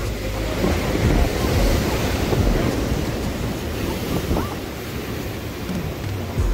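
Heavy ocean surf breaking and churning against rocks and a pier, with wind buffeting the microphone in low rumbles.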